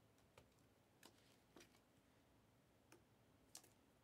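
Near silence, with a handful of faint, scattered clicks and ticks from a trading card being handled and slid into a clear plastic penny sleeve.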